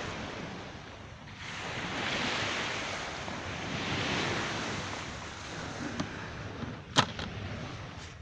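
Rushing of sea waves and wind, with wind buffeting the microphone, swelling and easing every couple of seconds. A single sharp click near the end.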